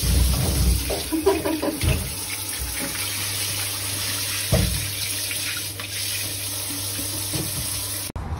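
Shower spray running steadily onto a shower tray and glass door, with a few dull thumps. It cuts off abruptly near the end.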